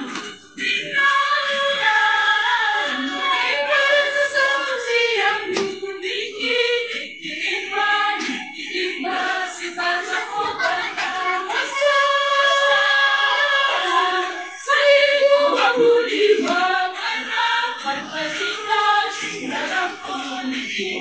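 A group of voices singing a song together, choir-style, in one continuous stretch.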